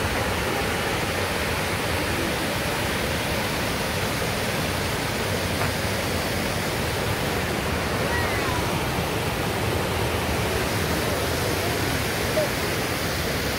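Mountain creek rushing down over rocks in white-water cascades: a steady, loud roar of falling water that does not let up.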